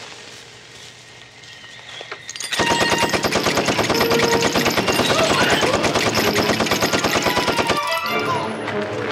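Movie sound effect of a multi-barrelled Gatling gun firing one long, rapid, unbroken burst that starts about two and a half seconds in and stops about five seconds later, over a music score.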